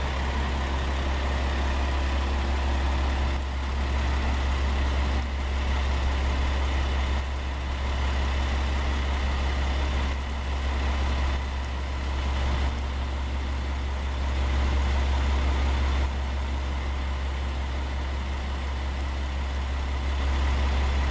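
Diesel engine of a JNR KiHa 47 series railcar idling steadily at a standstill: a deep, even hum with a faint steady whine above it.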